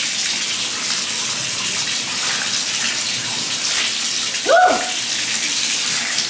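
Bathtub faucet running steadily, water pouring into the tub as a bath is drawn. About four and a half seconds in, a short high-pitched sound rises and holds briefly over the water.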